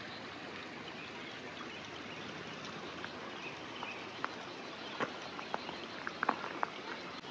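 Rural outdoor ambience: a steady hiss, with a scattered run of short, sharp chirps and ticks in the second half.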